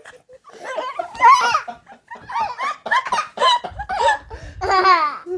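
A young child giggling in a run of short bursts instead of fake snoring.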